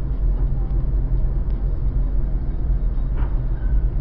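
A car driving, heard from inside: a steady low rumble of engine and road noise.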